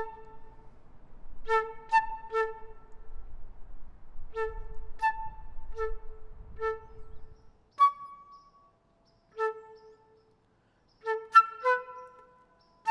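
Unaccompanied concert flute playing short, detached notes, mostly one note repeated, in brief phrases broken by pauses.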